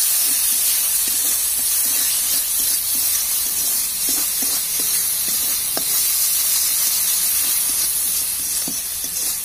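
A spice paste sizzling in hot mustard oil in a metal kadai, a steady hiss, while a spatula stirs and scrapes it with short strokes now and then. The masala is being fried down until its raw spice smell is gone.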